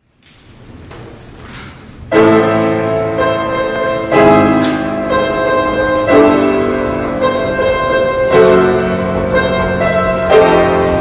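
Piano playing loud, sustained full chords, a new chord struck about every two seconds, starting about two seconds in after faint hall noise.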